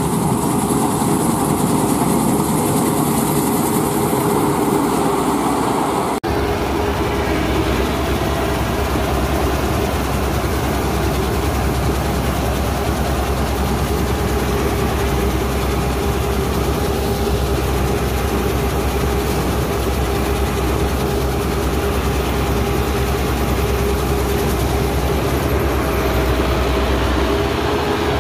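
Green Field Crop King 120 crawler combine harvester running steadily under load while cutting paddy: its 120 HP engine drones with a steady held tone above it. About six seconds in the sound shifts suddenly to a heavier low rumble.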